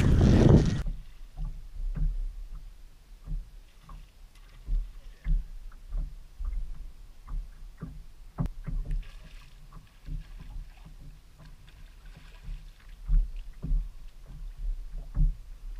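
Water slapping against a fishing boat's hull with irregular soft knocks and thumps, one sharper knock about eight seconds in. A loud rush of noise fills the first second before it drops away.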